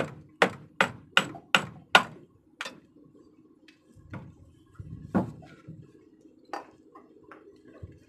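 Hammer blows on the end housing of an eight-plunger Bosch inline diesel injection pump clamped in a vise, knocking the housing loose: seven sharp strikes at about three a second. They are followed by a few lighter knocks and clinks as the loosened metal housing is handled, over a faint steady hum.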